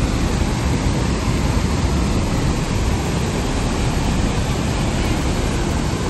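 River water pouring over a low weir-like cascade and churning below it: a loud, steady rush of noise.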